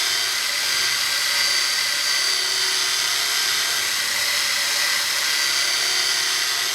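Salvaged blender motor driving a homemade drum sander, running steadily at high speed with a high-pitched whine.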